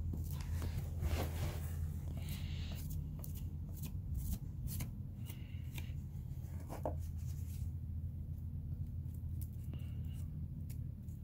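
Metal putty knife scraping and spreading putty on a door frame: a run of short, irregular scrapes and clicks over a steady low hum.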